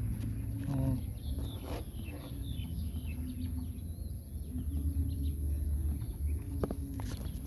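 Rural outdoor ambience: faint bird chirps in the first couple of seconds over a steady low rumble, with a few sharp rustles of bamboo leaves brushing close near the end.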